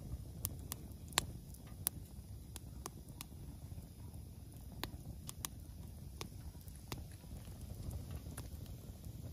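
Split firewood burning in a small steel fire box, crackling with irregular sharp pops over a low steady rumble. The loudest pops come about a second and two seconds in.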